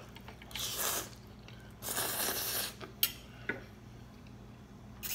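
Two long slurps of spaghetti noodles being sucked into the mouth, followed by a few short, wet mouth clicks while chewing.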